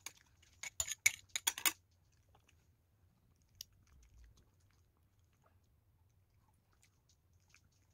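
A small dog chewing soft cake, with a quick flurry of wet clicking mouth sounds in the first two seconds, then only a few faint ticks.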